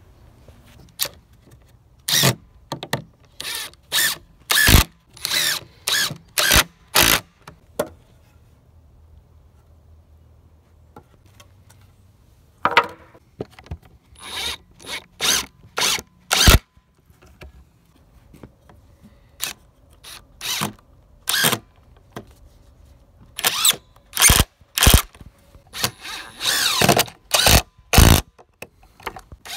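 Cordless drill-driver with a long pocket-hole bit driving screws into pine boards, run in many short trigger bursts in several groups with pauses between.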